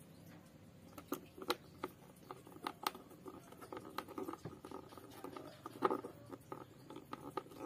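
Screwdriver driving a screw into the plastic bottom cover of an electric sprayer tank: small irregular clicks and scratches, starting about a second in, of the screw and tool working against the plastic.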